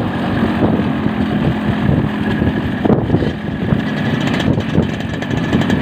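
Yamaha RX-King's two-stroke single-cylinder engine running steadily while riding, with wind buffeting the microphone.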